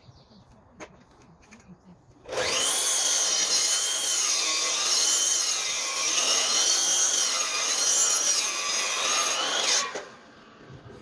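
Makita sliding mitre saw cutting through a timber sleeper. The saw starts abruptly about two seconds in and runs loud for about seven and a half seconds, its motor whine wavering in pitch as the blade works through the wood. It stops near the end.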